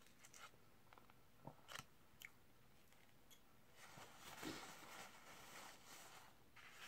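Faint chewing with a few soft mouth clicks, then paper napkin rustling for a couple of seconds as hands and mouth are wiped, starting about four seconds in.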